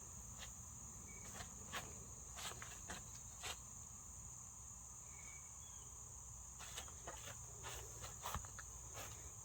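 Faint, steady chorus of insects, an even high-pitched buzz, with scattered soft clicks and rustles.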